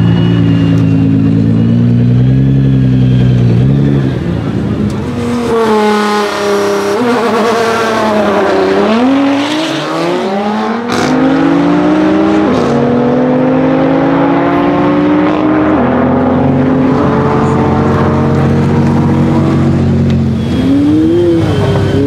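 A Mercedes-AMG CLA45's turbocharged four-cylinder with a loud Fi straight-pipe exhaust and a Nissan GT-R running at the drag-strip start line. Then both launch and accelerate hard away, their engine notes rising and dropping at each upshift. Near the end an engine revs up and down again.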